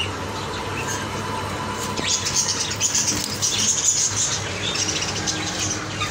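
Cockatiels chirping, a busy run of short high chirps about two seconds in, over a steady low hum.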